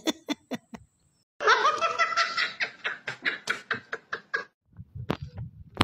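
A man laughing hard. A loud burst about a second and a half in runs on as quick, rhythmic bursts of laughter and stops about four and a half seconds in.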